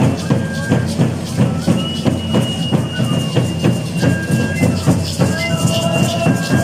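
Carrizo cane flute playing long, high, held notes over a steady, even drumbeat on a tambor.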